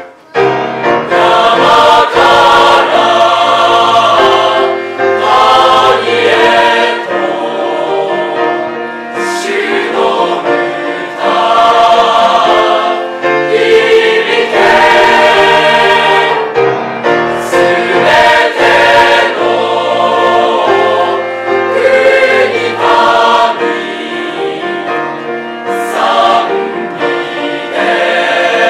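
School choir singing a sacred song in several voice parts, phrase after phrase, with a brief drop in sound just after the start.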